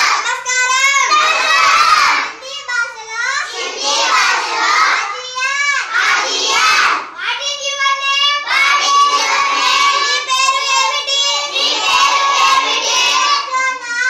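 Children chanting phrases aloud together in a sing-song recitation, in phrases of a second or two broken by short pauses.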